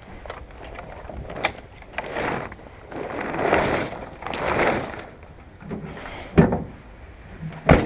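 Gusty rushing noise swelling and fading several times, with a few sharp knocks, the loudest a little past six seconds in.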